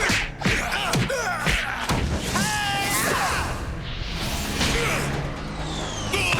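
Cartoon fight soundtrack: background score under a run of whooshes and impact hits in the first two seconds, then a drawn-out vocal cry about two and a half seconds in.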